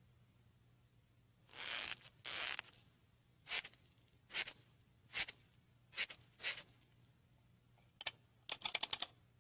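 A series of short scratchy noises: two longer ones, then five spaced evenly a little under a second apart, then a quick flurry near the end.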